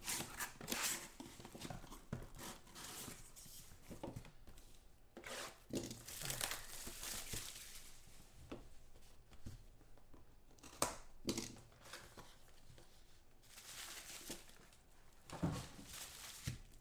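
Trading-card box being unpacked by hand: cardboard and bubble wrap torn and crinkled, an irregular run of rustling with scattered sharp clicks, the loudest a little past the middle.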